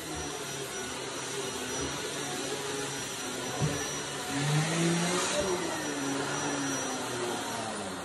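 Shark lift-away upright vacuum running on carpeted stairs on its hard-floor setting: a steady motor whine and airflow rush whose pitch wavers as the head is pushed. The suction grips the carpet so hard the head can barely be moved. There is a knock a little under halfway in, and the sound grows louder for about a second around the middle.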